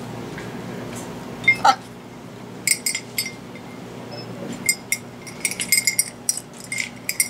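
Small metal bell on a parrot toy being rung and knocked by a blue-and-gold macaw's beak: a couple of sharp knocks, then from nearly three seconds in a rapid, irregular flurry of clinking strikes, each with a short metallic ring.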